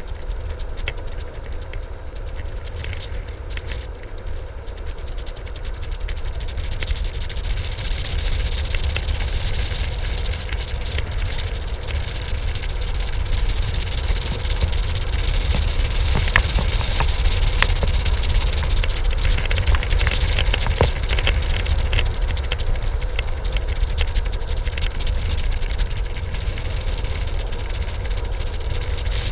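Wind rushing over the camera microphone and skateboard wheels rolling on asphalt during a fast downhill run, with scattered clicks from bumps and cracks in the road. It gets louder as speed builds in the first half.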